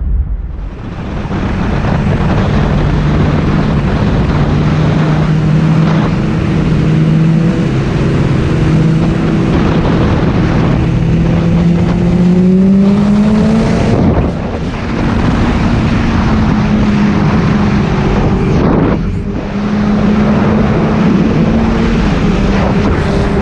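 Onboard sound of a BMW S1000RR inline-four sport bike riding at motorway speed: a steady engine note under heavy wind rush, the pitch climbing slowly as it pulls, with brief dips about 14 and 19 seconds in.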